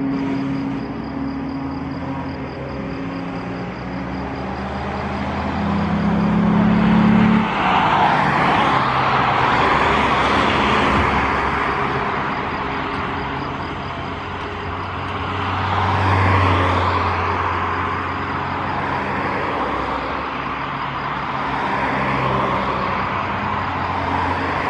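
Piaggio P180 Avanti's twin pusher turboprop engines climbing away after take-off: a steady propeller drone with low humming tones, loudest about seven seconds in, then rising and falling in slow swells as the aircraft recedes.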